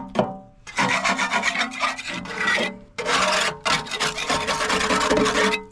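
Metal scraper blade scraping grime and flaking rust off the rusty steel oil pan of a Cummins ISX15, in quick back-and-forth strokes. There are two long runs of scraping with a short break about three seconds in.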